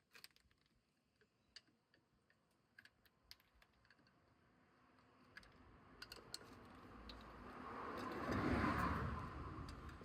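Scattered light clicks from handling small parts and tools, then a vehicle passing by, swelling to its loudest about eight and a half seconds in and fading.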